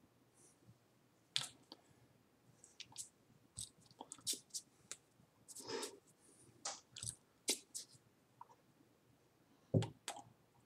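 Scattered soft clicks, taps and brushing sounds of a person's hands striking and rubbing together while signing in sign language, with one louder thump near the end.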